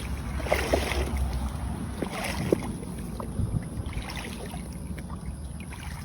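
Wind buffeting the microphone as a steady low rumble, with scattered brief rustles and light knocks of someone moving through the ditch.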